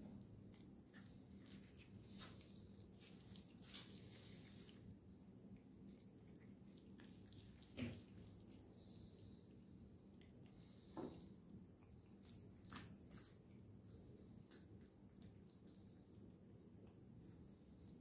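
Faint, steady, high-pitched insect trill, with a few faint taps about 8 and 11 seconds in.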